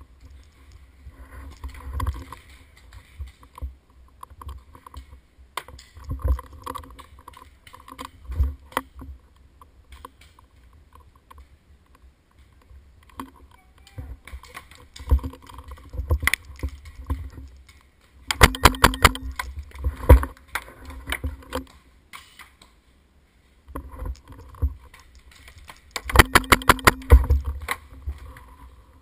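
Paintball marker firing two rapid strings of shots, about eight to ten a second, each lasting just over a second: one past the middle and one near the end. Scattered single pops and knocks come in between.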